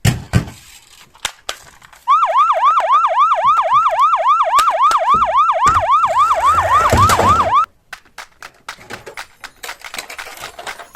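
Toy emergency vehicle's electronic siren sounding a fast yelp, about four falling sweeps a second, for some five seconds before cutting off suddenly. Sharp clicks and knocks come before and after it.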